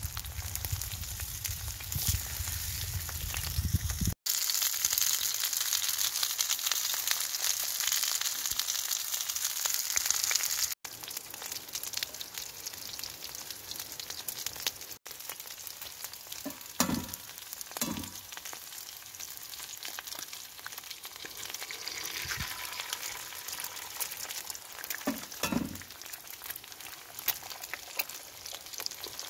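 Breakfast food sizzling and spitting in fat in a Petromax SP32 wrought iron skillet: sausages, square sausage, black pudding, tattie scones and eggs. A steady hiss runs throughout, with a few soft knocks in the second half.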